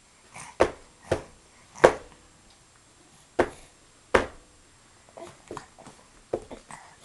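A series of sharp knocks at uneven intervals, about six loud ones with several softer taps near the end.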